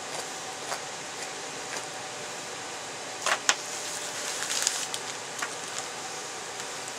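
Hands working a walleye's skin loose from the flesh: a few faint clicks, two sharp snaps close together about three seconds in, then a brief rustle, over a steady hiss.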